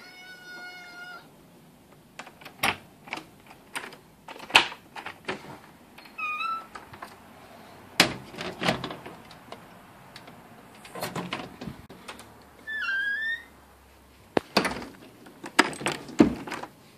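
A house cat meowing a few short times, among scattered knocks, thumps and rustling from moving about and handling the phone.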